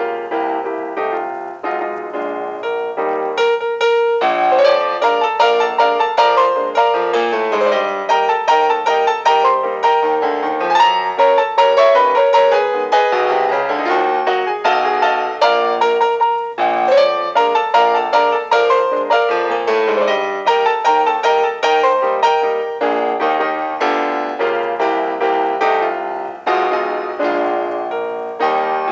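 Background piano music, a quick run of many notes in the manner of a silent-film accompaniment, with short breaks about four seconds in and again about halfway through.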